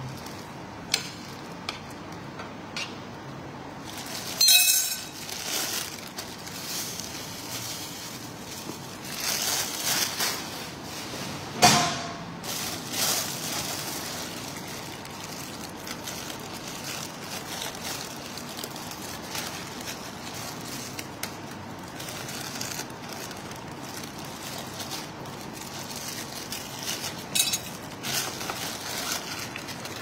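A spoon or other utensil clinking against a bowl now and then during eating, with two sharper ringing clinks about four and a half and twelve seconds in, over steady background noise.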